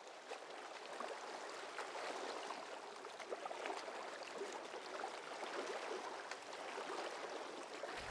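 Water lapping and splashing: a steady wash of small waves with many little splashes and drips, fading in over the first second.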